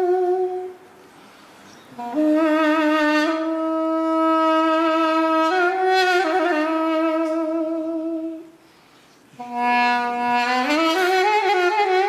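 Solo duduk playing a slow melody: long held notes with vibrato, broken twice by short pauses for breath, and a note that slides upward near the end.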